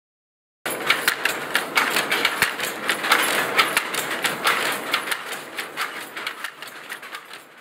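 Wooden handloom clattering: a dense, rapid run of sharp wooden clacks that starts suddenly just under a second in and fades out near the end.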